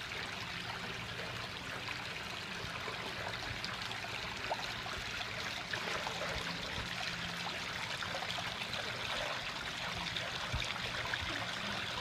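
Backyard koi pond waterfall: water spilling steadily over rocks into the pond, a continuous trickling splash.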